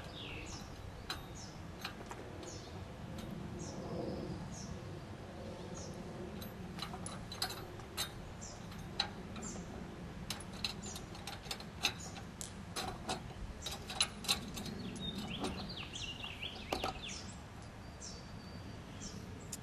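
Scattered sharp metal clicks and clinks of U-bolts, nuts and brackets being handled and fitted by hand onto a boat trailer rail. Birds chirp repeatedly with short, high, falling notes.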